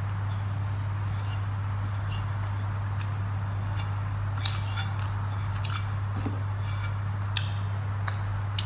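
A person eating rice and curry with her fingers: soft chewing with a few short, sharp, wet mouth clicks and lip smacks, the loudest about halfway through, over a steady low hum.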